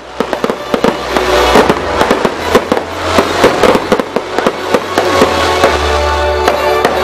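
Fireworks display: a rapid run of bangs and crackling from aerial shells bursting, with music playing underneath.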